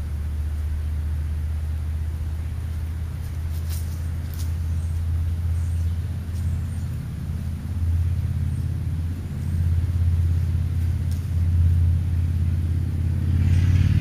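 Low, steady rumble of a motor vehicle's engine, growing louder toward the end.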